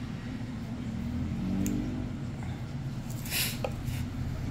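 Steady low rumble of a running vehicle engine, with a faint click about a second and a half in and a short hiss about three and a half seconds in.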